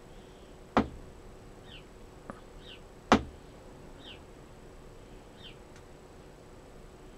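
Two sharp knocks, about a second in and again about three seconds in, with a lighter tick between them. A bird makes short high falling chirps every second or so throughout.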